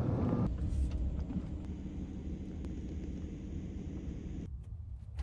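Low, steady rumble of a vehicle driving, with road noise. Near the end it drops away to a quieter low hum.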